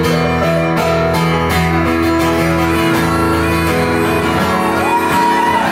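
Live acoustic guitar strumming with electric keyboard accompaniment, an instrumental passage of a folk/country song.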